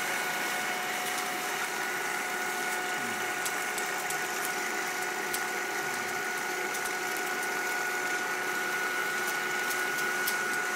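1950s Marín film projector running steadily: an even mechanical whir with a constant high-pitched whine and faint ticking. It is in good working order.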